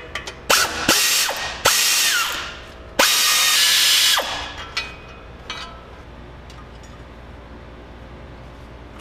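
Pneumatic air ratchet spinning in several short bursts, the longest about a second, as it backs out the engine fan bolts on the water pump pulley. Then a few faint clicks as the loosened fan and bolts are handled.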